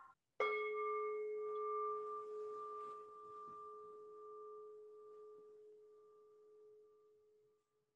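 A bowl-shaped meditation bell struck once, about half a second in, ringing with a deep tone and a few higher overtones and fading away over about five seconds, with a slight pulsing as it dies.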